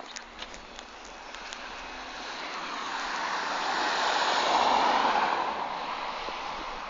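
A car driving past, its tyre and engine noise building to a peak about two-thirds of the way through and then fading. A few light footstep clicks are heard in the first second or so.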